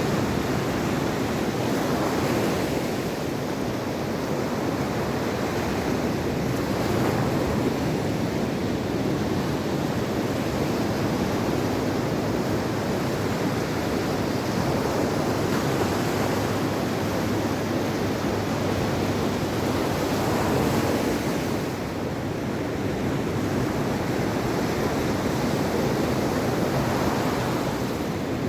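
Mediterranean Sea waves breaking and washing on the shore, a steady surf that swells and eases every few seconds, with some wind on the microphone.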